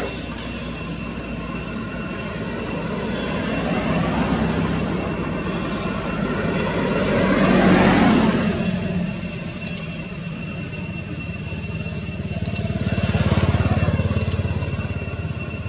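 Motor traffic passing: a vehicle swells up and fades about halfway through, and another goes by near the end, over a steady high-pitched whine.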